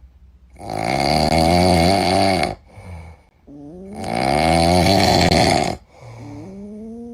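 A cat snoring loudly: two long, rasping snores of about two seconds each, with quieter rising breaths between and after them.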